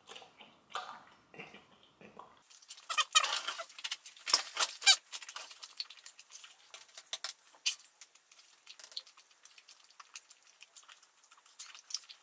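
Wet smacking and squelching of a mouth chewing a huge wad of dozens of pieces of gum, loudest about three to five seconds in, then a quicker run of fainter wet clicks.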